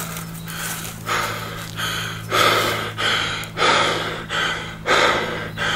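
A man breathing hard and fast, gasping for air after an all-out timed workout. The breaths come about one or two a second and get louder about two seconds in. A steady low hum runs underneath.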